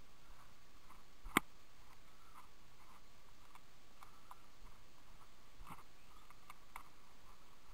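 Faint rustling and scattered small clicks of someone walking through dry grass and scrub, with one sharp click about a second and a half in.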